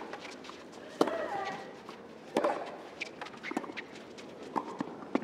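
Tennis ball being struck by rackets during a doubles rally, a string of sharp pops about a second apart, the loudest about a second in.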